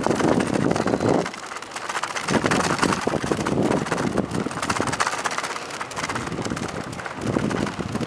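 Wind rushing over the microphone of a moving bicycle, swelling and dropping away in gusts. Underneath is a constant patter of small clicks and rattles from the tyres rolling over the wooden boardwalk planks.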